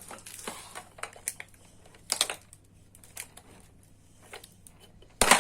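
Plastic toy packaging being handled and pulled apart: irregular small clicks and crinkles, with a louder crackle about two seconds in and a loud crinkling burst near the end.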